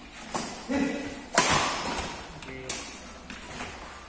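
Badminton doubles rally: sharp racket strikes on the shuttlecock, about four of them, the loudest about a second and a half in, echoing in a metal-walled hall.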